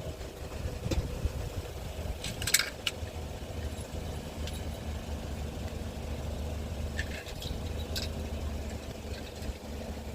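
Car on the move: a steady low drone of engine and road noise, with a few light clicks and rattles, the most about two and a half seconds in.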